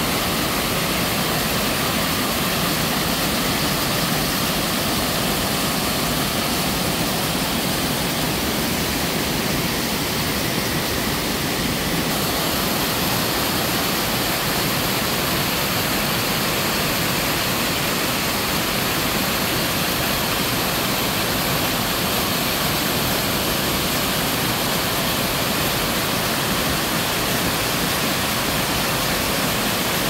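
Small waterfall cascading over boulders in a mountain stream: a steady, even rush of falling and splashing water.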